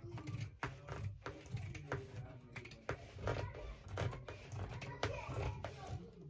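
Fabric being handled and cut with scissors: irregular sharp clicks and scratchy rustling, about one or two a second.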